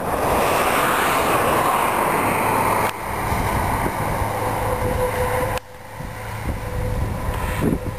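Freight train hauled by two blue locomotives running along the valley: a steady rushing rumble with a low hum. The noise drops abruptly twice, a little after the start and again past the middle.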